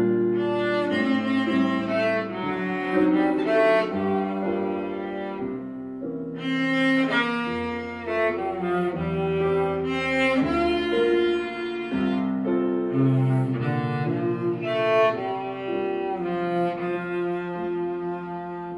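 Cello bowed by a young student, playing a slow, legato melody of sustained notes that change every second or so.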